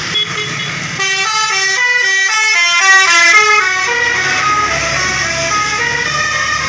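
Basuri-type telolet musical horn on a Dewi Permata tour bus playing a quick melody of stepped notes, starting about a second in, over the low rumble of the bus.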